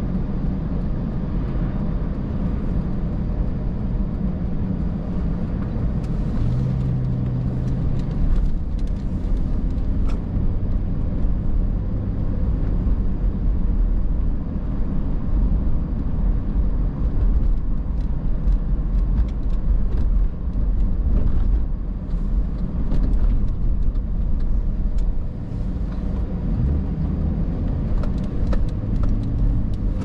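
A car driving, heard from inside the cabin: steady engine and road noise, a low rumble whose engine note shifts now and then.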